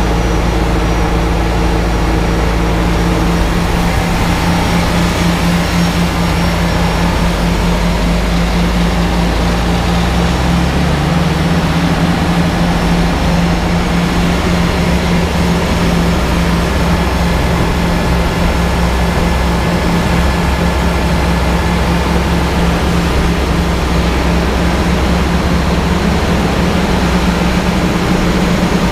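Large diesel farm tractors running steadily at working revs while a forage wagon unloads chopped corn silage into a silage bagger, a loud continuous machinery drone. The engine note shifts about ten seconds in.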